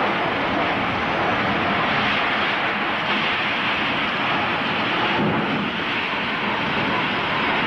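Tornado wind and driving rain making a loud, steady rushing noise that buffets the camcorder microphone.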